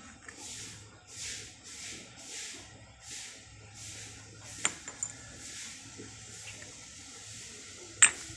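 An old rusted pipe elbow is handled over galvanized iron fittings. Soft rustling swishes repeat every half second or so, a sharp metallic click comes about halfway through, and a louder clink near the end as the fitting knocks against the metal.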